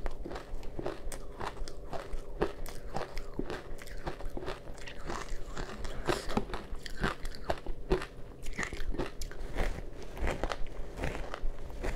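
Close-up crunching of ice coated in matcha powder as it is bitten and chewed: a steady stream of irregular crisp crunches, several a second.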